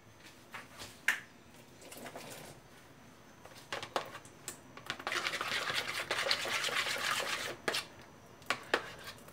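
A metal spoon stirring and mashing margarine and egg in a plastic bowl. There are scattered clicks and scrapes, then about two and a half seconds of fast, dense scraping from about halfway in.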